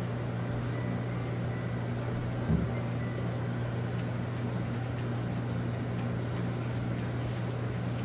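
Steady low electric hum with a hiss of running aquarium equipment in a fish room. A brief thump comes about two and a half seconds in.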